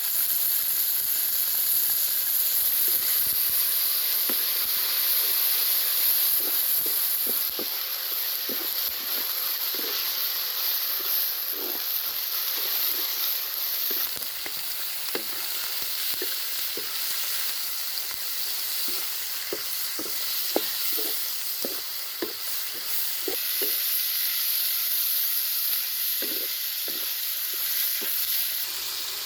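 Chicken organs sizzling as they fry, with a utensil stirring and scraping them in the pan in short, irregular strokes.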